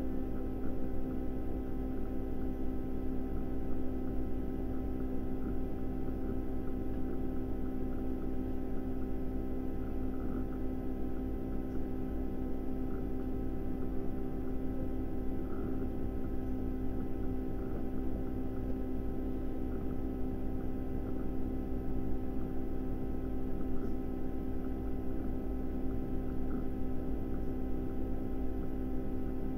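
A steady electrical hum made of several fixed tones over a low rumble, with no change in pitch or level.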